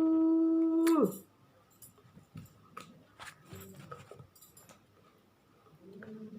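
A dog's long whine held on one pitch, cutting off about a second in, followed by a few faint clicks and taps.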